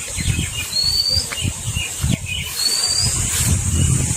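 A wild bird calling, a short rising whistle heard twice about two seconds apart, with a few fainter chirps. Under it run a steady high insect drone and a strong low rumble.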